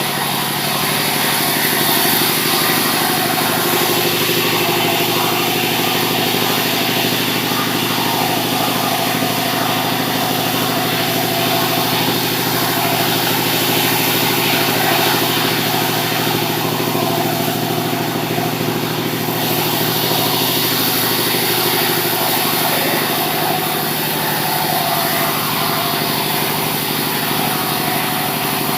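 Sawmill machinery running steadily: a continuous engine-like drone with a hiss above it, holding an even level throughout.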